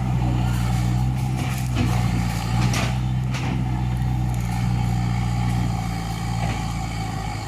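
Komatsu excavator's diesel engine running steadily, with a few brief sharp noises from the working machine about two to three seconds in.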